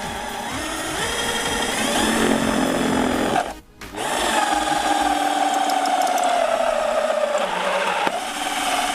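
Cordless hammer drill in drilling mode on its high-speed setting, turning a hole saw through the thin sheet-steel skin of a foam-cored wall panel. The motor whines steadily and cuts out for a moment about three and a half seconds in. It then runs again with its pitch sagging slowly as the saw loads up in the steel, and stops near the end as the saw breaks through.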